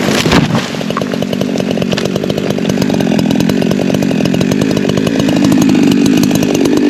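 Two-stroke Holzfforma G372XP Pro chainsaw running steadily at high revs, cutting into a big tree during felling.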